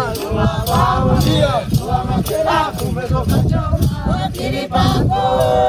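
A group of Hadza people singing together, several voices overlapping, over a steady sharp percussive beat of about two to three strokes a second.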